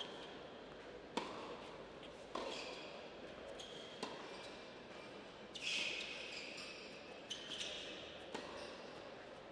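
Tennis rally on an indoor hard court: sharp racket strikes and ball bounces, a click every second or so, with two longer scuffing noises around the middle.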